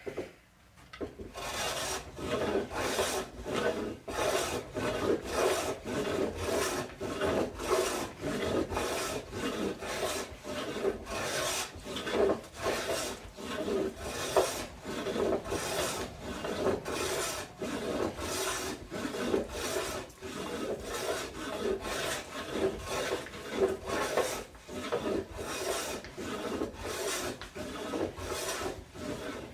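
Hand tool shaving the face of a mahogany beam in quick, repeated rough strokes, about two a second, taking off the saw chatter marks.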